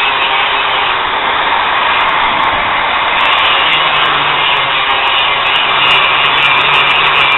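Angle grinder grinding down an old weld on a wood splitter's metal frame: a steady, loud, harsh grinding noise without let-up.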